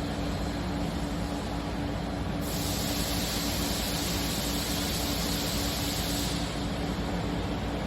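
Steady machine hum and background noise, with a hiss that comes in about two and a half seconds in and stops about four seconds later.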